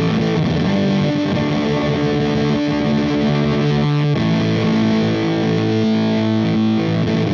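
Electric guitar played through a Valco Bloodbuzz drive/fuzz pedal: heavily distorted, sustained chords, with a change to new notes about four seconds in.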